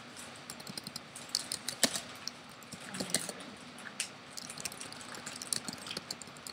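Typing on a computer keyboard: a quick, irregular run of key clicks as a line of text is entered.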